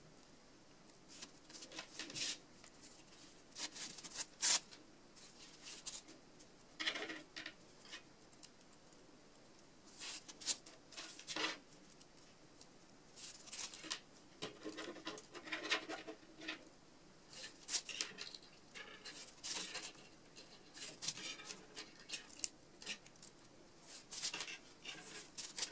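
Faint, irregular rustling and light crackling of hands working a beaded wire rose stem: floral tape crinkling as it is stretched and wound around the stem, with beads and wire clicking as the thorn is bound on.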